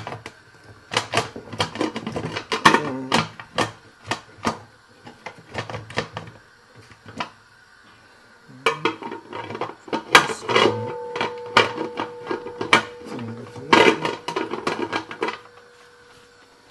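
Metal pressure cooker lid clattering and clicking against the pot as it is fitted and locked on, in two bouts of rapid knocks. A steady tone sounds for several seconds during the second bout.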